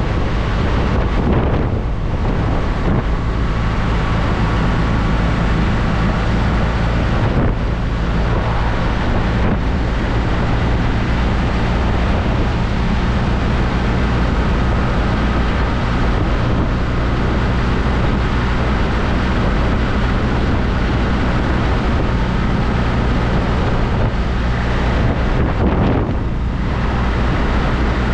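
BMW R1200RT motorcycle's boxer-twin engine running steadily on the move, under heavy wind rush on the microphone.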